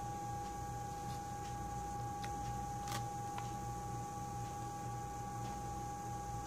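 Steady electrical hum with a thin high tone from bench equipment. A few faint clicks of the tablet's glass and aluminium body being handled come through, the clearest about three seconds in.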